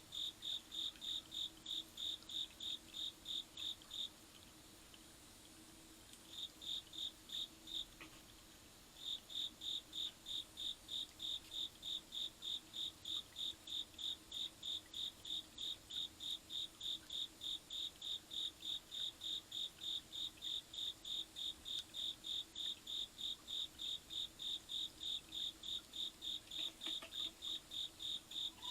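Cricket chirping in a steady, even rhythm of about three high chirps a second, breaking off twice for a few seconds early on.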